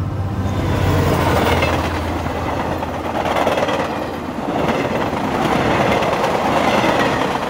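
A passenger train passing, its rolling noise swelling and easing several times as the coaches go by.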